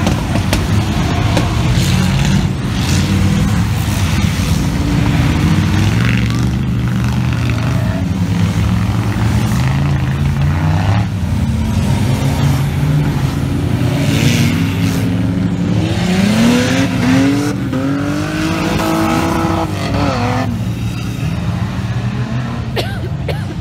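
Off-road trial 4x4's engine running hard under load, the revs rising and falling repeatedly. About sixteen seconds in, the revs climb steeply in a rising whine, hold high for a few seconds, then drop back.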